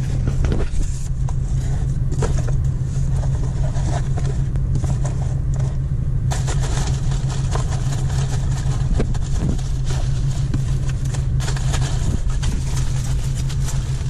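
Steady low hum of an idling car engine heard inside the cabin, with scattered rustles and clicks of a cardboard box and packing peanuts being rummaged through.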